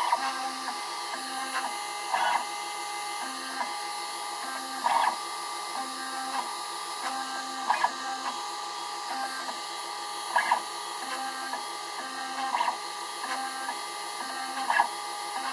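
Stepper motors of a small CNC laser cutter moving the laser head in short, steady-pitched moves with brief pauses between them as it traces the pad openings of a solder stencil. A louder burst comes every two to three seconds.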